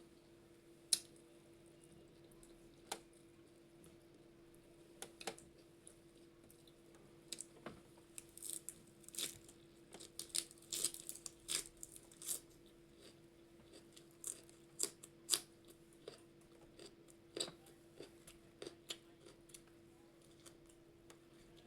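A person eating a meal by hand, chewing with scattered wet clicks and small crunches, busiest in the middle. A steady faint hum sits underneath.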